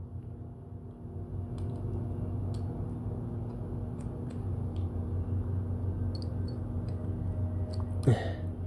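Slip-joint pliers working on an 18650 cell, pulling at its welded nickel strip: a few faint metal clicks and taps over a steady low hum. A short vocal sound about 8 seconds in.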